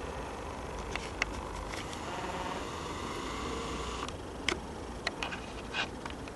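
Handling noise: a handful of light clicks and knocks, scattered through the clip, over a steady background hiss.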